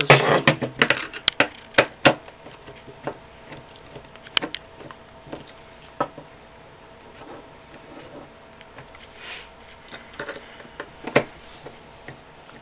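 Phillips screwdriver working screws out of an airsoft L85 gearbox shell: metal clicks and taps, a quick run of them in the first two seconds, then scattered single ticks.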